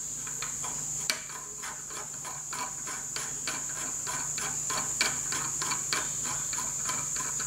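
Light, irregular metallic clicks and taps as an aluminium spinner is fitted and turned by hand onto a steel propeller driver, with a wooden propeller on a model glow engine. A steady high-pitched whine runs underneath.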